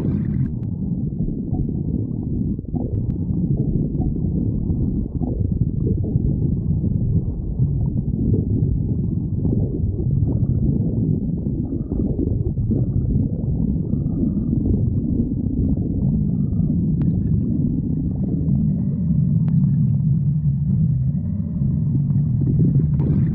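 A person's stomach growling: a continuous low rumble that runs on without a break and grows a little stronger in the second half.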